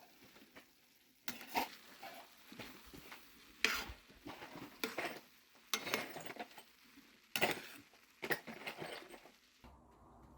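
A utensil stirring and scraping food that is sizzling in a pan, in irregular strokes.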